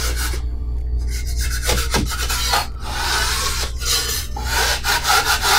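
A 6-inch drywall knife scraping across dried joint compound on a drywall seam in several strokes, knocking down the high spots of the first coat before the second coat goes on.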